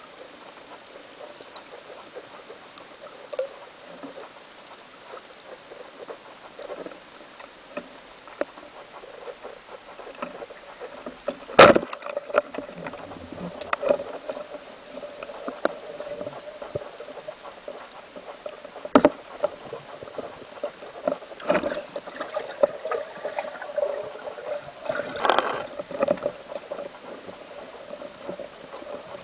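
Underwater sound picked up through a camera housing: scattered clicks and knocks over a steady hum. The loudest event is one sharp crack about twelve seconds in, the speargun being fired; a few more knocks follow later.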